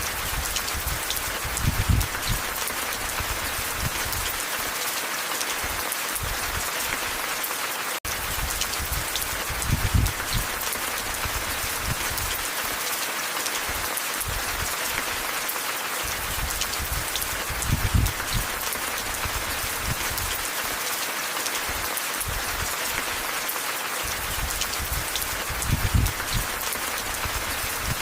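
Steady rain falling, a dense, even hiss, with a low muffled thump that comes back about every eight seconds.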